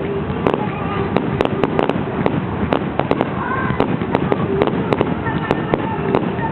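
Fireworks display: a dense, irregular run of sharp bangs and crackling pops, several a second, over a continuous rumbling noise.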